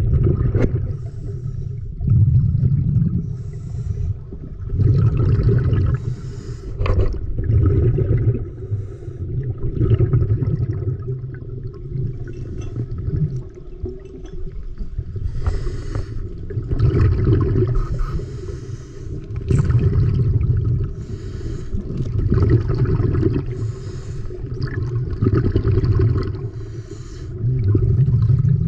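A diver's breathing heard through an underwater camera: slow, regular breaths with bubbly rumbling, swelling and fading every two to three seconds.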